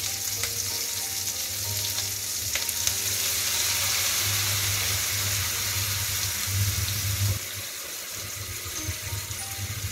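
Pork, garlic and onion sizzling in a hot wok just after soy sauce has been added. The sizzle swells about three seconds in and drops off sharply about seven seconds in.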